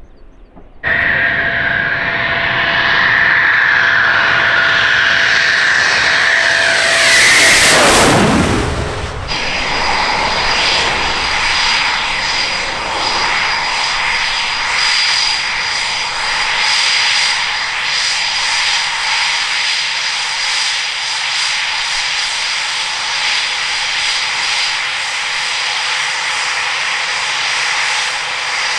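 Eurofighter Typhoon's twin Eurojet EJ200 jet engines, coming in abruptly about a second in and passing close by around eight seconds in, the pitch sweeping as it goes past. The loud engine roar then carries on steadily with a high whine.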